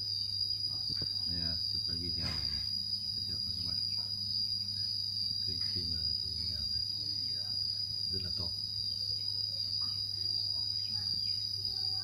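Insects singing: one steady, high-pitched unbroken drone, with a faint steady low hum beneath it.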